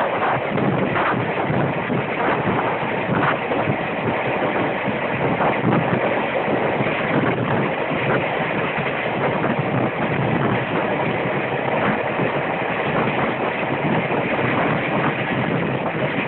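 Steady, loud rushing and rumbling of a moving vehicle, with scattered faint clicks.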